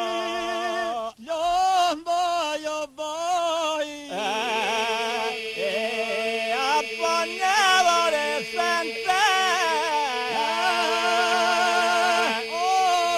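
Unaccompanied men's voices singing a southern Albanian Skrapar polyphonic folk song: ornamented, wavering solo lines over a steady held drone from the group. The drone comes in firmly about four seconds in, after a few short breaks in the singing.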